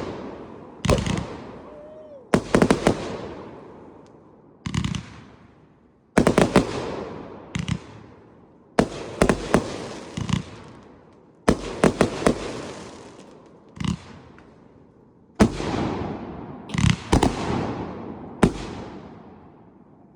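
Gamera 109-shot firework cake firing: a string of loud sharp bangs, often several in quick succession, every second or two, each dying away in a fading echo.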